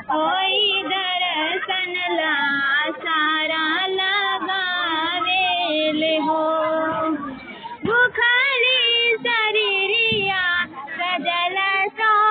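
High women's voices singing a Bhojpuri Chhath Puja devotional song (chhath geet) in long, wavering phrases with vibrato, with a brief break between phrases about seven and a half seconds in.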